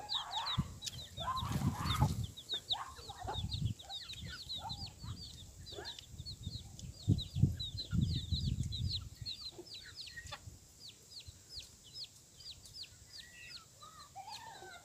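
Chicks peeping continuously in short, high, falling notes, about three or four a second, with occasional lower clucks and a few low thumps.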